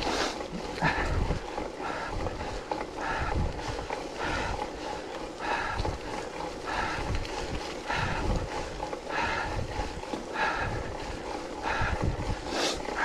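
A bike racer breathing hard and rhythmically, one heavy breath about every second, with wind buffeting the microphone.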